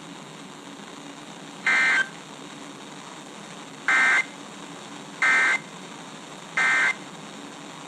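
Four short bursts of EAS/SAME digital data tones, a raspy two-tone warble, each about a third of a second long. The first comes about two seconds in and the last three follow about a second apart. This is the end-of-message code closing a NOAA Weather Radio warning, with faint radio hiss between the bursts.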